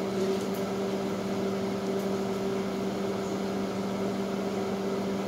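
A steady machine hum with two steady tones, one low and one about an octave higher, and no knocks or bumps.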